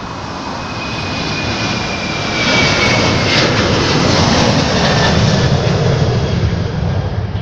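Boeing 737-900's CFM56-7B turbofan engines at takeoff thrust as it climbs out overhead. The jet noise builds to a loud peak about two and a half seconds in, with a high whine falling in pitch as it passes. It eases off a little near the end.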